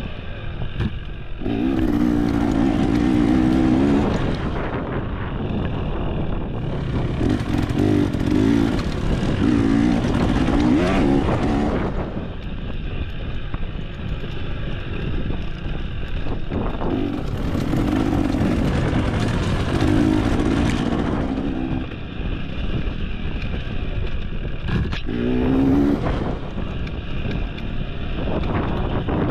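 Dirt bike engine being ridden on a trail, revving up in several bursts of throttle and dropping back between them.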